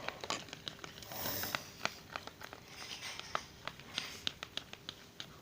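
White glue, water and contact lens solution being stirred together in a container for slime, with irregular small clicks and sticky crackles from the stirrer.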